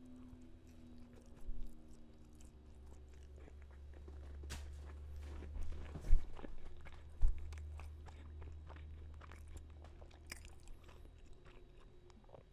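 A mouthful of bacon burger being chewed close to the microphone, with many small wet mouth clicks and a low rumble. Two sharp low thumps stand out, about six and seven seconds in.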